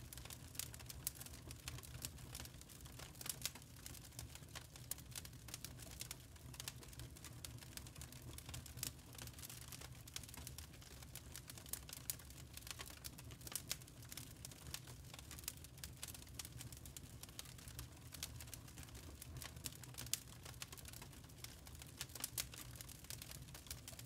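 Glowing lump charcoal burning, giving off many small, irregular crackles and pops over a low steady rumble.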